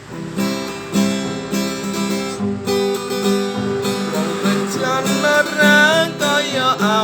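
Song intro on a strummed acoustic guitar, in a steady rhythm; from about four seconds a higher melody line that slides between notes comes in over it.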